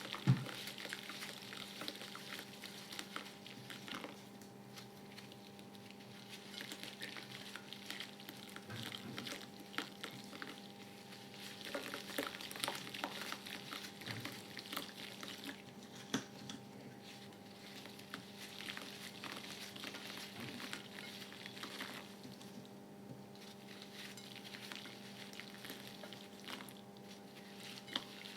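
Gym chalk crumbling and fizzing in water, a dense run of tiny crackles and pops with a sharper click just after the start. A steady low hum lies underneath.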